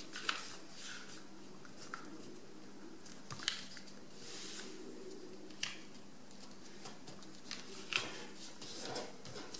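Sheet of paper being folded and creased by hand: faint, scattered rustles and small crinkling clicks as the corner is folded over and pressed flat.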